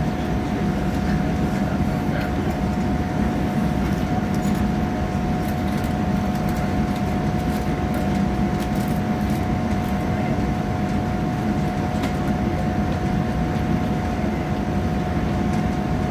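Passenger train running at speed, heard from inside the carriage: a steady rumble with a constant whine over it.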